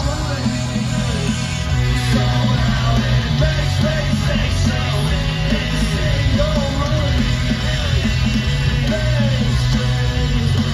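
Live punk-rock band playing loud through a festival stage PA, with electric guitars, bass and drums and a sung lead vocal over them, heard from the crowd.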